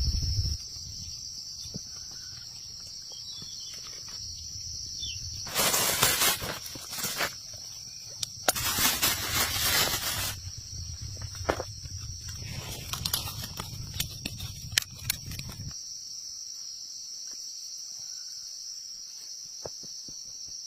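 Insects trilling steadily at a high pitch in the forest. Two loud rushing bursts come about 6 and 9 seconds in, with scattered light clicks and knocks from work close by.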